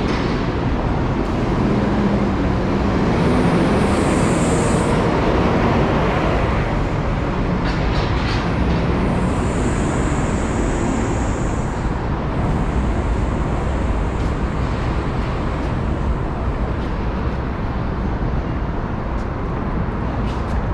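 Loud, steady city traffic noise from passing vehicles, with a high-pitched squeal twice: about three seconds in and again around ten seconds.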